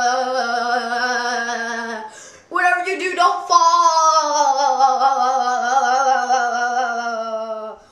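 A child's voice holding two long sung notes, the second sliding slowly downward in pitch.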